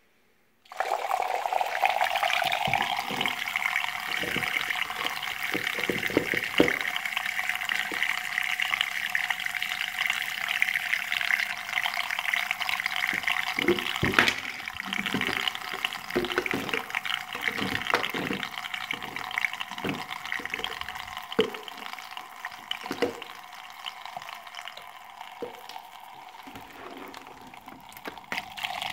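Battery-powered mixing blade in a Tornado Shaker bottle switched on about a second in and whirring steadily as it churns the drink, with irregular low knocks from the sloshing liquid.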